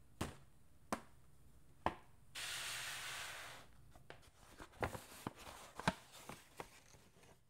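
Hands handling a stiff paper shopping bag: three sharp taps, then about a second of rustling, then a run of small crinkles and taps as the hands reach into the bag.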